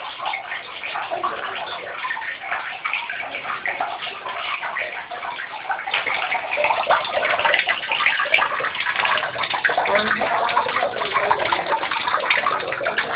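Water splashing at the surface of a koi pond as koi rise to feed from a hand, growing louder about six seconds in.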